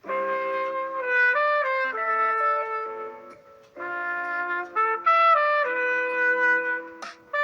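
A Samsung Galaxy M32 ringtone starting up: a trumpet-like brass melody of short held notes, with a brief break about three and a half seconds in.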